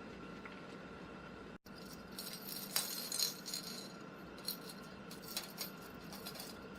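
Small cat toys rattling and clicking inside a homemade cat toy ring as a pet bats them around, in short scattered bursts with the loudest clatter about three seconds in.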